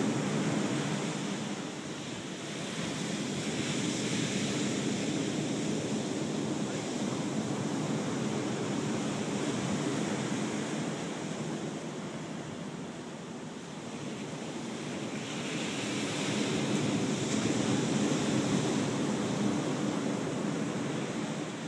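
Ocean surf washing onto the beach: a steady rush that swells and ebbs over several seconds, loudest a few seconds before the end.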